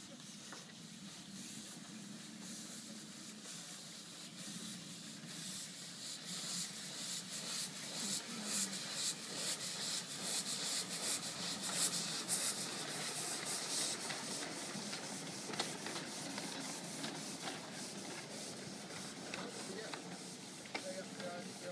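Miniature 7¼-inch gauge 0-4-2 side-tank steam locomotive chuffing past with a hiss of escaping steam; the quick run of puffs grows louder towards the middle, peaks, then eases away.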